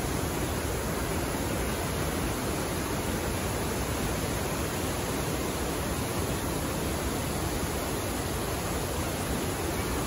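Pykara Falls: a wide waterfall of white water cascading over rock ledges, rushing steadily and evenly.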